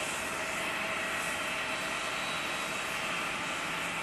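Jet airliner engines running, a steady rushing noise with a faint, even whine over it.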